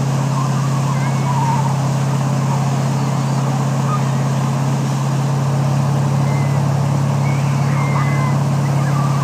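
Motorboat engine running steadily at speed while towing ringo tubes, a constant low drone under the rush of wake water and wind. A few faint, short cries from the riders rise over it now and then.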